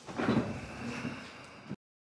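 Handling noise of a phone being picked up and moved, rustling and bumping against the microphone; the sound cuts off suddenly near the end as the recording stops.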